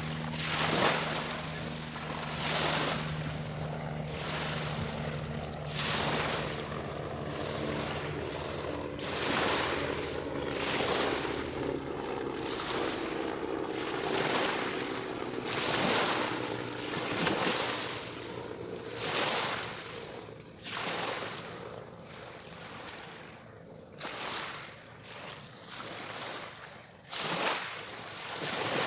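Small waves washing onto the beach one after another, each wash a surge of hiss every second or few, with a steady low hum underneath for the first several seconds.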